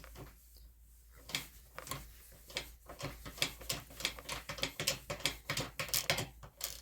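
Toolant 90-tooth 3/8-inch flex-head ratchet being worked back and forth on a bolt: quick runs of fine clicks from its ratchet mechanism, starting about a second in and growing busier toward the end.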